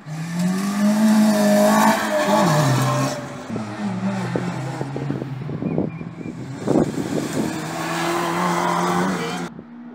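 Rally car engine running hard at high revs, its pitch dropping steeply about two seconds in and then climbing again as it pulls away, with a run of sharp cracks in the middle. The sound starts and cuts off suddenly.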